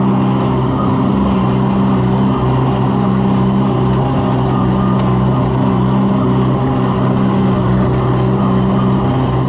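Tractor engine running steadily at working speed while it drives a rotary shredder, with a constant low hum and no change in pace.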